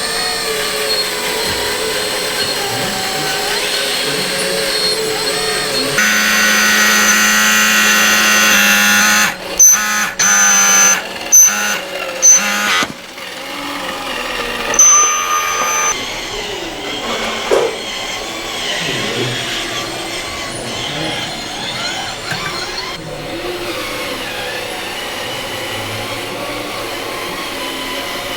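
Small electric motors and hydraulic pumps of radio-controlled model construction machines whining. The pitch and loudness change abruptly several times, with a run of short start-stop bursts around the middle.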